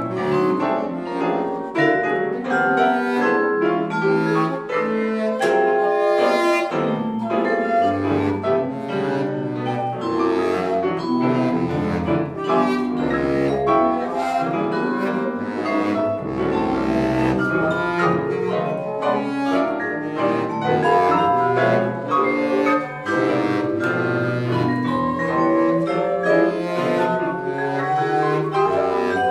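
Contemporary chamber music played live by a quartet of bass flute, baritone saxophone, percussion and piano: many short, separate notes and strokes over low held tones.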